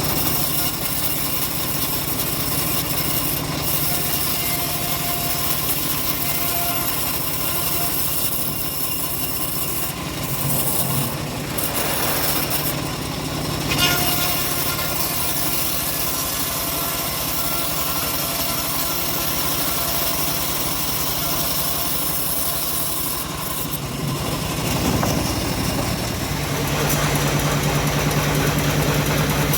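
Engine of a homemade bandsaw mill running steadily, growing a little louder near the end.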